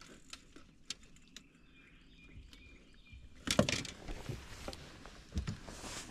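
Light clicks and knocks of fishing tackle being handled, with a louder clatter of knocks about three and a half seconds in. Faint bird chirps come through a little after two seconds in.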